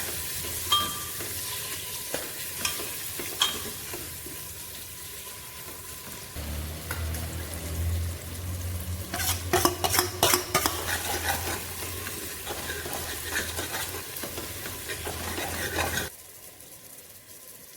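Tadka frying and sizzling in desi ghee in a pan, stirred with a spoon that clinks and scrapes against the pan now and then, with a burst of stirring about halfway through. The sizzle drops away abruptly near the end.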